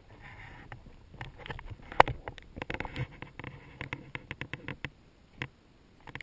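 Footsteps crunching on gravelly dirt: a string of short crunches and clicks, densest between about two and five seconds in, with one louder knock about two seconds in.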